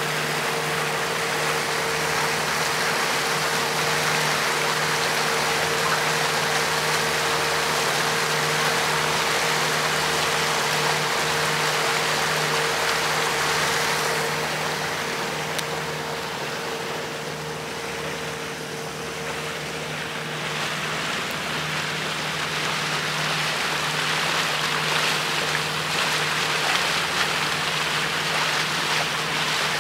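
Outboard motor running steadily with the boat under way: a steady engine hum under a heavy rush of wind and water noise. The rush eases for a few seconds a little past halfway, then picks up again.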